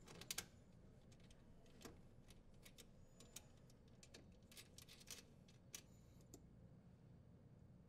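Faint, scattered small metal clicks and taps as a strain relief locknut is threaded onto its connector by hand and then gripped with channel-lock pliers to tighten it. The clearest clicks come just after the start, over near-silent room tone.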